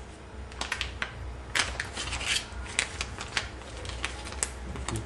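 Clear plastic packaging crinkling in the hands as a wooden icon is handled in and out of it: a run of irregular sharp crackles and small clicks starting about half a second in.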